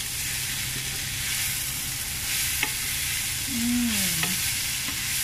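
Pounded cassava leaves and pea eggplants sizzling in a hot pan while a spatula stirs them, a steady hiss with a couple of light knocks from the stirring.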